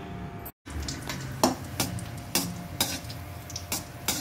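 A steel slotted ladle stirs cashew nuts frying in ghee in a stainless-steel kadai. It clinks and scrapes against the pan about every half second over a light sizzle. The sound starts after a short silent gap.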